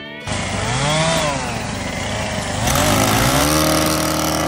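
Gas-powered brush cutter engine revving up and dropping back, then revving up again about three seconds in and held at high speed while cutting brush.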